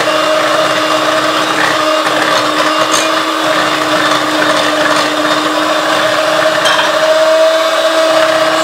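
Electric hand mixer running steadily with an even motor whine, its beaters whisking a butter, sugar and egg cookie batter.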